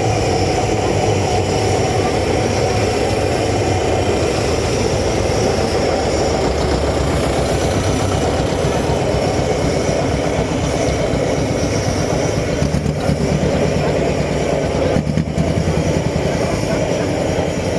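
IAME Pampa tractor's hot-bulb two-stroke engine running at idle with a steady, rapid chugging beat.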